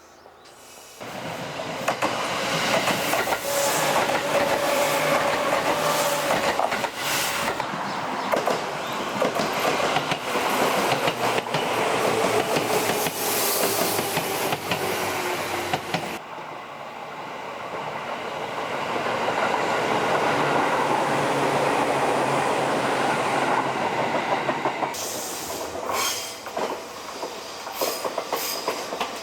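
Electric train running past, with a steady rumble of wheels and running gear and faint tones from the motors or wheels. The sound cuts from one passing train to another twice, about halfway through and again near the end.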